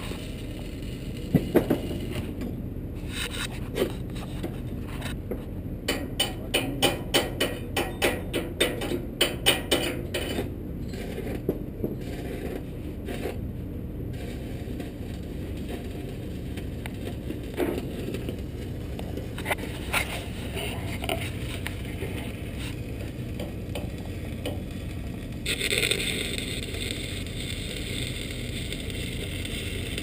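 Welding work on a steel crane boom: a run of sharp metal taps, about two or three a second, in the first third, with scattered clicks around it. A few seconds before the end the steady crackling hiss of the welding arc starts and keeps going.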